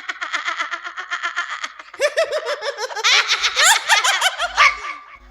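One person laughing loudly in a high-pitched, rapid giggle, in two long runs of laughter with a brief break about two seconds in. The laugh fades out near the end.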